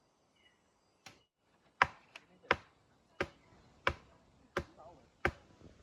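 Steady chopping: a blade striking hard about once every 0.7 seconds, eight sharp knocks starting about a second in.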